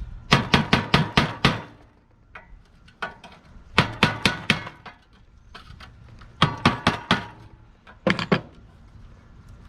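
Hammer striking a rusted bolt head in quick bursts of sharp metal blows, about four groups of two to six strikes each, to shock the seized threads loose.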